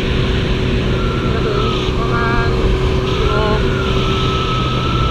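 Honda CB650F inline-four motorcycle running at a steady road speed under a constant rush of wind noise.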